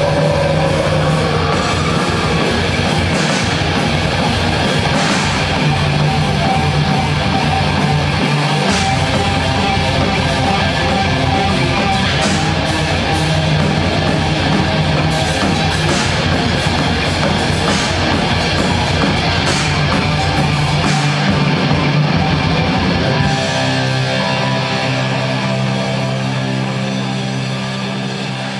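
A live heavy metal band plays with distorted electric guitars, bass and drum kit. About 23 seconds in, the drums drop out and a final chord rings on, slowly fading.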